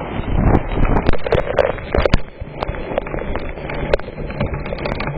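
Strong storm wind buffeting the microphone, with hailstones striking hard surfaces in scattered sharp clicks. The gust eases about two seconds in.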